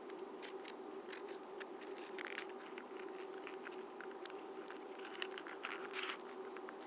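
Paper model pistol being handled: irregular light clicks, crackles and rustles of paper, over a steady low electrical hum.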